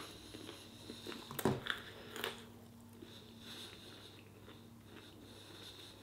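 Faint chewing of a mouthful of bread, with a few soft mouth clicks and smacks about one and a half to two and a half seconds in.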